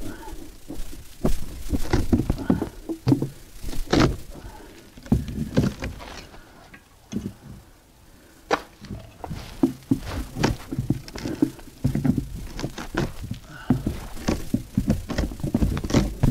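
Hammer blows on OSB wall sheathing, knocking out a sawn-out rectangle for a gable vent opening: a run of irregular wooden thunks and knocks, fewer and lighter around the middle.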